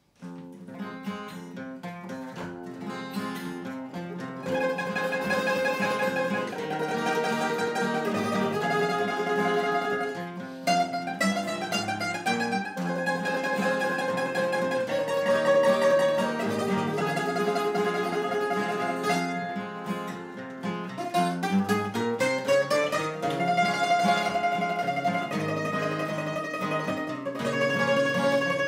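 Bouzouki playing the melody over two acoustic guitars, as the instrumental opening of a Greek popular song. The music starts right away and grows fuller after about four seconds.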